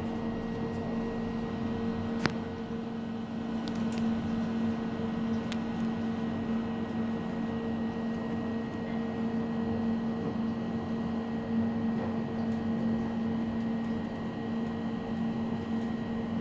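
Steady hum inside a moving passenger elevator car as it travels down, two low tones over a soft rushing noise, with a few faint clicks in the first few seconds.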